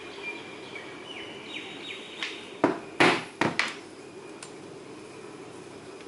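About four sharp knocks in quick succession, a mallet striking a stitching chisel to punch stitch holes through leather into a cutting board. Birds chirp faintly before them.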